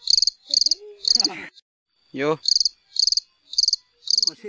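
Cricket chirps, evenly spaced at about two a second, used as the comedy sound effect for an awkward silence; they break off for about a second partway through. A brief falling voice-like sound comes about two seconds in.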